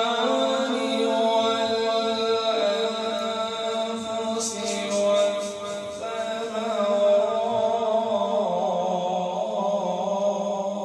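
A solo man's voice reciting the Quran in the melodic tilawat style, holding long drawn-out notes that glide and waver in pitch.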